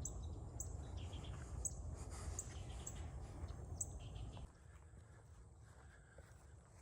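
Birds giving short, high chirps, about six spaced over the first four seconds, over a low rumble that cuts off abruptly about four and a half seconds in.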